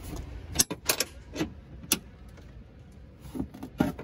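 A 17 mm wrench clinking and knocking against the seat-belt buckle's mounting bolt and the metal seat frame while the bolt is broken loose. There are about half a dozen sharp metallic clicks, irregularly spaced, with a pause in the middle.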